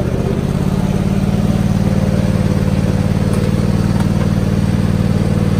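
Sears Craftsman riding lawn mower engine running steadily, heard up close from the mower itself.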